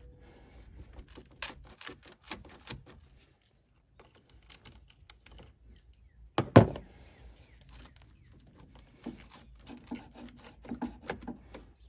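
Irregular clicks and small metal knocks from a ratchet and 10 mm socket loosening the negative (ground) battery terminal clamp, with one louder knock a little past halfway.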